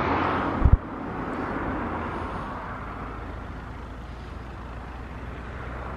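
A short loud rush of noise ending in a low thump under a second in, then steady outdoor background noise: an even hiss over a low rumble.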